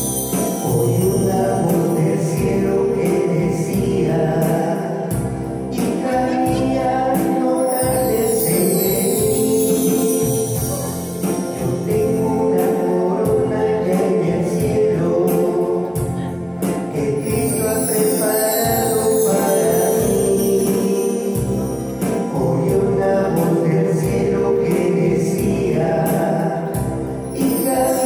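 A choir singing a religious hymn with instrumental accompaniment and a steady beat.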